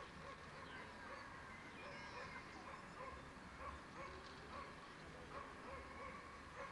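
Faint dogs barking and yelping in short, scattered calls over steady open-field noise.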